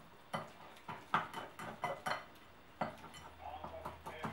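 A metal stirring utensil clinking and scraping against a ceramic bowl in irregular strokes, mixing flour into yeast water to start a pizza dough.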